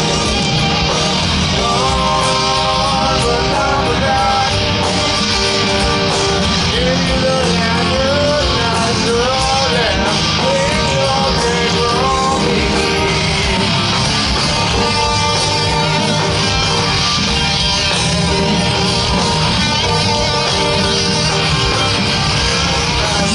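Live hard-rock band playing a slow song through a festival PA: electric guitar, bass and drums, with a sung melodic line winding up and down in the first half.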